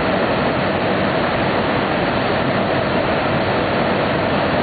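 Weeke BHX500 CNC machining center running, a steady, even rush of machine noise with no distinct strokes or pauses.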